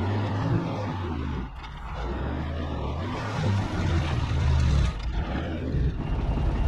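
Delivery truck's engine running at low speed while the truck is manoeuvred, its note shifting, then settling into a steady idle near the end.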